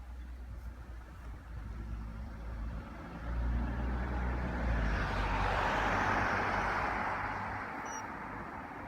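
A motor vehicle passing by: a low engine hum that grows louder about three seconds in, then a rush of tyre and road noise that swells and fades away.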